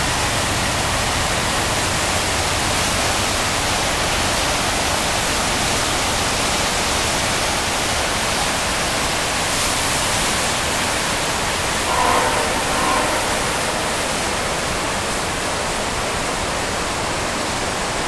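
Kootenai River pouring over Kootenai Falls and through its rapids, swollen with fast snowmelt: a loud, steady rush of whitewater. Two brief pitched sounds rise over it about twelve seconds in.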